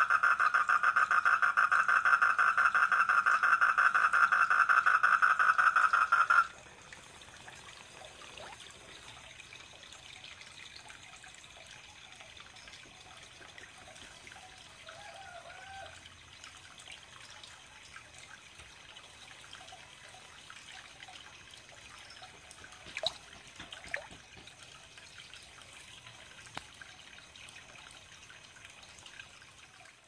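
A frog calling in a loud, steady, rapidly pulsing trill that cuts off abruptly about six seconds in. After it comes a faint trickle of water, with two sharp clicks a second apart near the end.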